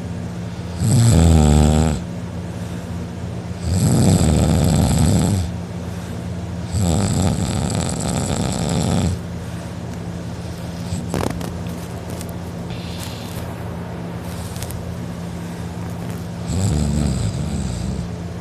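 A drunk man snoring loudly: four long snores, the first three a few seconds apart, then a long pause before the fourth. A steady low hum sits underneath.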